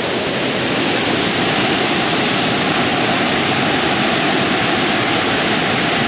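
A large waterfall's falling water: a steady rushing noise.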